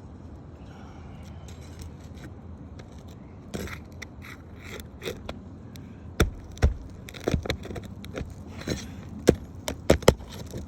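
Hand work on a roof shingle: scraping and rattling, then a run of sharp, irregular knocks, the loudest near the end.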